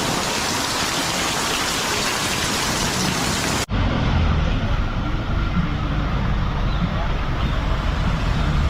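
Heavy rain making a dense, steady hiss. It breaks off suddenly a little under four seconds in and gives way to a duller, lower rumble.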